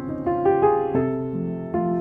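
Background piano music: a melody of struck notes, a new one roughly every half second, over held lower notes.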